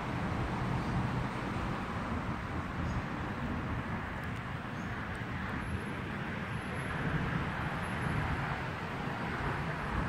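Steady outdoor background noise with a low rumble, of the kind left by distant urban traffic; no bird calls stand out.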